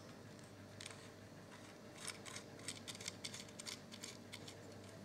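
Faint, irregular small clicks and scrapes of an SMA coaxial connector's threaded nut being turned and tightened by hand.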